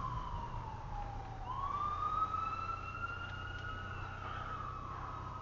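An emergency vehicle siren wails, heard from inside a car. It falls slowly to a low point, then about a second and a half in it sweeps sharply back up and slowly sags again. Under it is the car's steady low engine and road hum.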